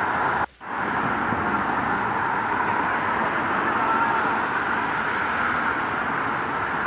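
Steady rain falling on a city street with traffic running on the wet road. The sound drops out for an instant about half a second in.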